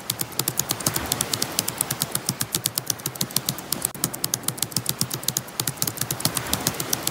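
Typing sound effect: a fast, even run of key clicks, about eight to ten a second, accompanying text that types itself out letter by letter.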